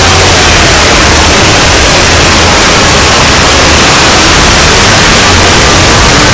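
Deliberately over-amplified, clipped sound effect that comes out as a loud, steady hiss of distortion, with faint gliding tones buried in it.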